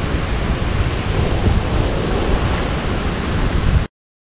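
Ocean surf breaking on a rocky shore, with strong wind buffeting the microphone. The sound cuts off abruptly to silence near the end.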